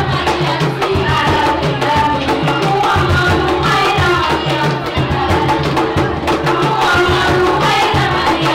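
A kourel, a group of women, chanting Islamic devotional verses together through a PA system, with percussion.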